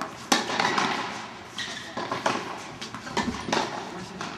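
Tennis ball struck by rackets and bouncing on an indoor hard court during a rally: several sharp hits that echo in the hall, the loudest about a third of a second in.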